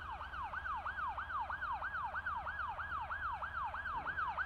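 Siren in a fast yelp pattern, about four quick falling sweeps a second, growing slightly louder near the end.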